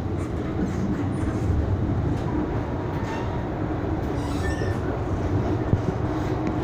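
MTR M-Train, a Metro Cammell electric multiple unit, running along the track, heard from inside the carriage: a steady, even rumble of wheels and running gear.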